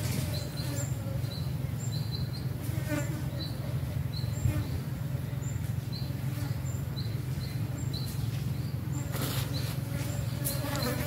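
Flies buzzing close to the microphone as a steady low drone, with short high chirps repeating irregularly about every half second.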